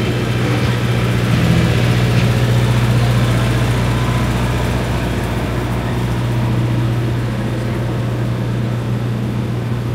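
An engine idling steadily, giving a loud, constant low hum.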